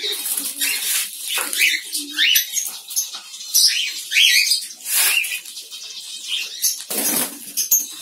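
Diamond doves flapping their wings in a wire cage in repeated short flurries as a hand reaches in to catch one.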